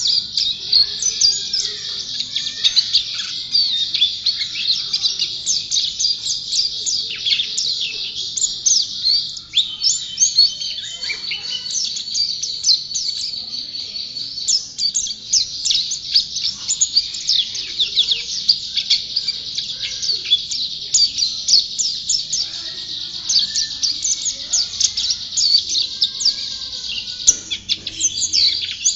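White-eye (pleci) singing non-stop in a long, rapid stream of high chirps and warbling trills. This is the unbroken 'gacor' song prized in contest birds.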